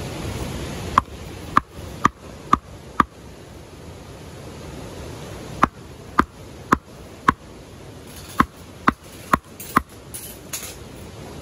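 A hatchet chopping down into the top of an upright stick of hardwood firewood on a log block: thirteen sharp knocks in three runs of four or five, about two a second. The wood is hard and is not splitting.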